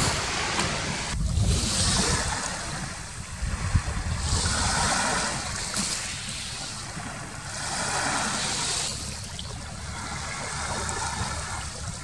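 Sea waves breaking and washing up the beach, a surge of hiss about every three seconds over a steady low rumble.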